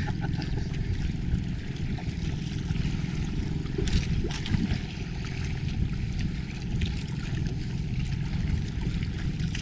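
Steady, low noise aboard a small outrigger fishing boat at sea, with water washing against the hull.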